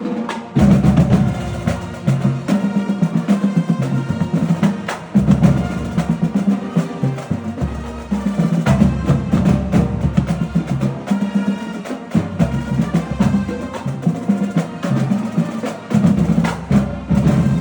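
Marching band music driven by its drumline: snare, tenor and bass drums play rhythmic patterns over the band's sustained pitched parts. There is a loud entry about half a second in.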